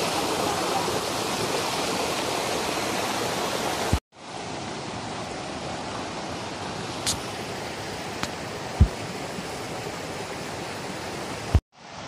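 River water rushing steadily over rocks and through a narrow rock channel, loud at first. After a cut about four seconds in, a quieter rush of water from a pool and small cascade, with a few faint knocks.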